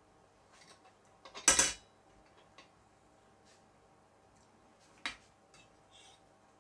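A metal fork knocking and scraping against a stainless steel saucepan while stirring rice noodles in boiling water: a loud clatter about one and a half seconds in, a sharp clink about five seconds in, and a few light ticks between.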